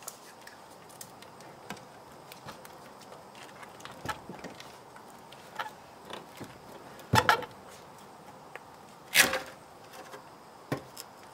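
A weathered wooden board knocking and scraping against a concrete block foundation as it is worked out of a gap, with scattered light clicks and two louder scrapes about seven and nine seconds in.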